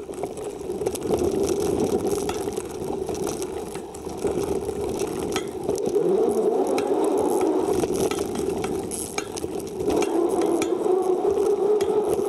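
Loaded touring bicycle being ridden, picked up by a camera mounted on the bike: steady tyre and ride noise as it rolls over grass and then a paved path, with the frame and packed bags rattling over bumps.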